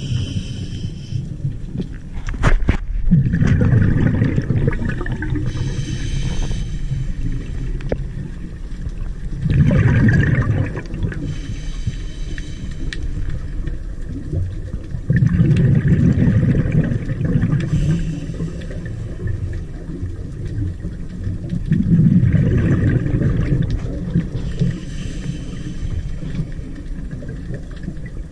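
Scuba diver's regulator breathing heard underwater: a short hissing inhale, then a longer low rush of bubbling exhaust, repeating about every six seconds, roughly four breaths in all.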